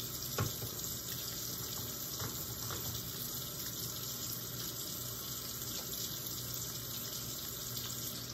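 Kitchen tap running steadily into a sink while hands are washed, with a single knock about half a second in; the running water drops away at the very end.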